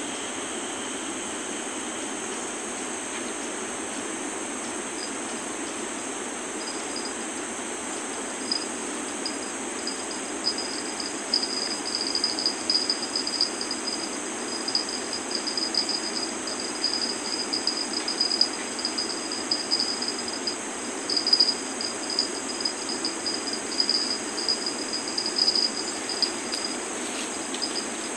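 Insects chirring: a high, pulsing trill that grows louder and busier about ten seconds in, over a steady background hiss.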